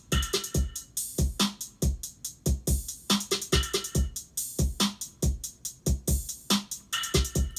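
Looping electronic hip-hop beat at 141 BPM played back from beat-making software: deep booming kicks and sharp hi-hats, with a short melodic stab repeating about every three and a half seconds.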